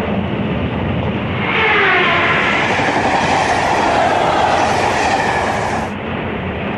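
Tokaido Shinkansen bullet train running past, a steady rush of rail noise that swells about a second and a half in with a brief falling whine, then eases off near the end.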